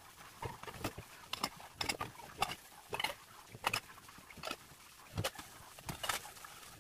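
A baby suckling at the breast: short sucking and swallowing sounds in an irregular run, about two a second.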